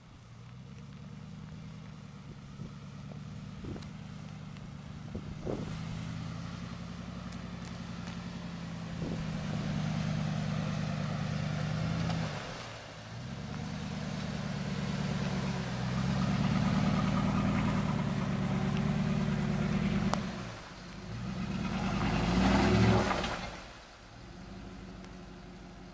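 2007 Dodge Ram 1500's 5.7-litre Hemi V8 working at low revs as the truck crawls over a rocky dirt trail. It pulls harder in swells about ten seconds in and again from about sixteen to twenty seconds, with short dips between, and is loudest at about twenty-two seconds as the truck passes closest, gravel crunching under the tyres.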